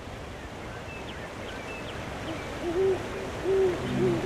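An owl hooting three times, each hoot a short rising-and-falling call, over a soft hiss of night ambience with faint high chirps about a second in. A soft sustained music chord comes in near the end.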